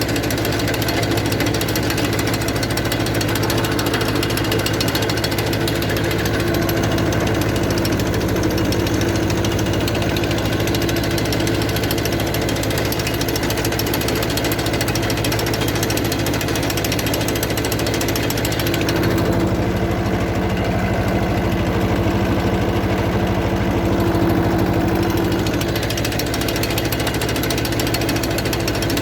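Captain mini tractor's diesel engine running steadily with a fast rattling knock while it works a sweet potato digger. Its note shifts for a few seconds about two-thirds of the way through.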